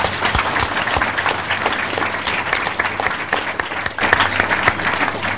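Audience applauding: a crowd clapping steadily, dipping briefly about four seconds in before picking up again.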